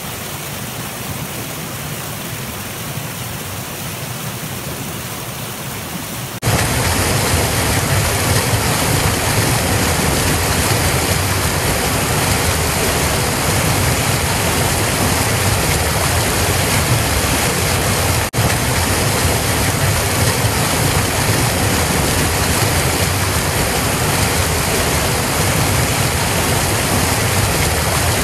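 Creek water rushing and splashing over boulders in small rapids, a steady rush that gets much louder about six seconds in, with a brief dip in level about eighteen seconds in.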